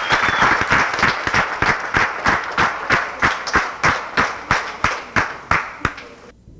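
A group of people clapping together in a steady rhythm, about three claps a second, over a noisy crowd. The claps slow a little and fade, then the sound cuts off suddenly near the end.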